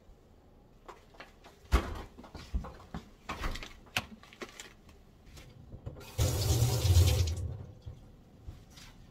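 Light knocks and clatters as containers and a plastic bag are set down on a stone kitchen counter. About six seconds in, a kitchen tap runs water into the sink for about a second and a half.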